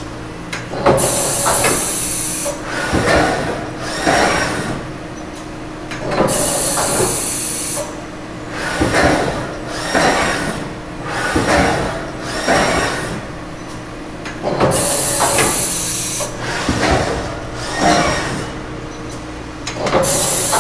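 Mori Seiki SV-500/40 vertical machining center running through a cycle: four loud hissing blasts, each about a second and a half long, with several shorter mechanical whirring bursts from the machine's moving parts between them.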